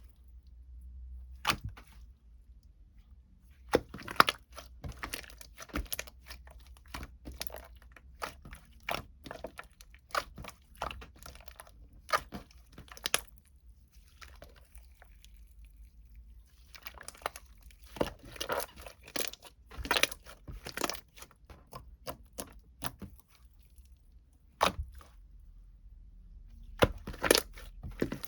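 Irregular close-up clicks, taps and crinkling noises from objects being handled, in clusters with short pauses between them.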